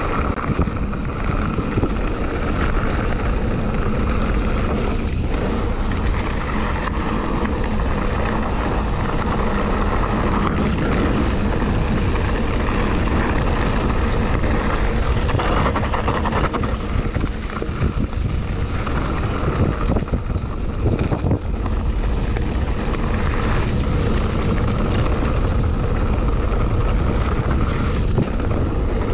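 Mountain bike rolling fast downhill on a rough, rutted dirt road with loose stones: wind buffeting the microphone over tyre noise, with frequent knocks and rattles from the bike as it jolts over the bumps.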